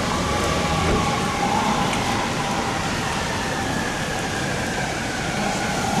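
Emergency vehicle siren wailing in slow rising and falling sweeps over the steady noise of city traffic on a wet street.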